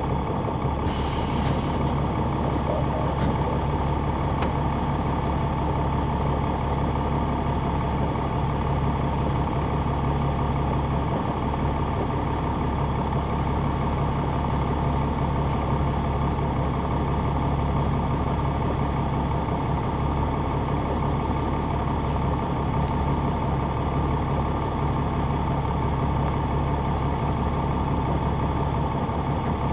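Caterpillar C9 diesel engine of a 2004 Neoplan AN459 articulated bus running steadily, heard from inside the cabin near the rear, with a steady high whine over the low engine sound. A short hiss about a second in.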